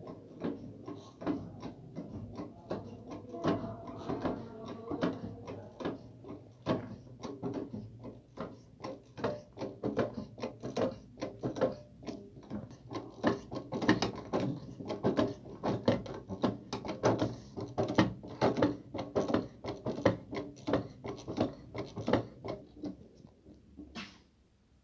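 Manual lever-operated hydrostatic test pump being pumped by hand: repeated mechanical clicks and knocks from the lever and piston as it forces water into a plumbing line to pressurise it for a leak test.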